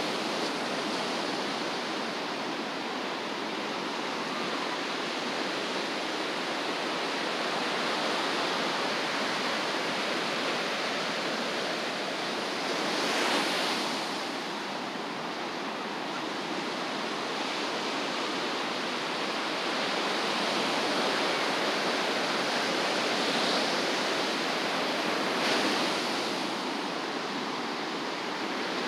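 Ocean surf washing onto a beach: a steady rushing hiss, with a wave breaking a little louder about halfway through and again near the end.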